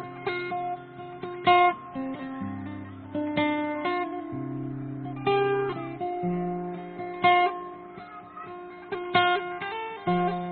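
Background music: a plucked guitar picking out notes over a held bass line.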